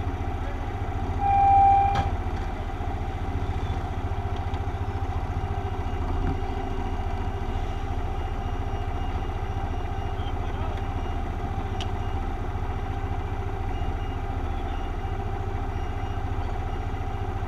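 Motorcycle engine idling steadily while stopped, a low even rumble. About a second in, a short loud high-pitched tone sounds for under a second.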